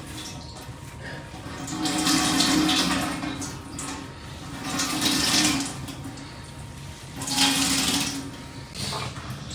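Water sloshing or pouring in three swells, each about a second long and a couple of seconds apart.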